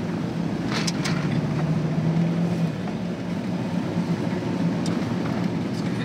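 Steady engine and road drone of a Jeep Wrangler TJ heard from inside the cabin while driving, with a low hum that swells slightly a couple of seconds in. A couple of short clicks come about a second in.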